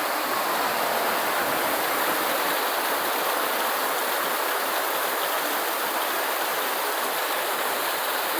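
Steady heavy rain falling, an even wash of noise with no single drops or thunder standing out.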